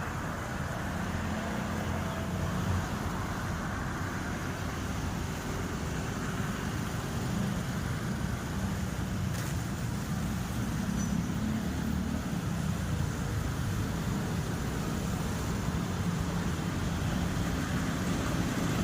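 Steady low rumble and noise of a train, with no speech.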